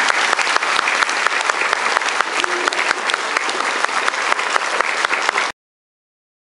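Audience applauding, many hands clapping densely and steadily; the applause cuts off suddenly about five and a half seconds in.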